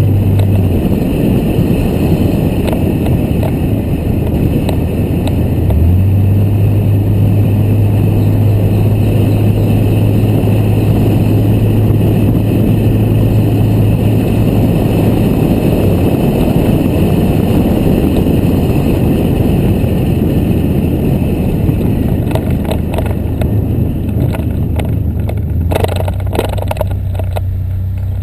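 Motor vehicle driving along: a steady low engine hum over continuous rumble, with a few sharp knocks near the end.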